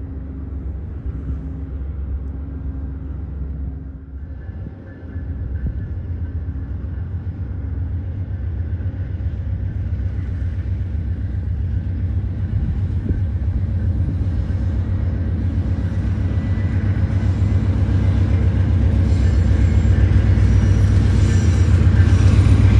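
Diesel passenger locomotive rumbling low, steady for about four seconds. After a short dip, a deep rumble builds steadily louder.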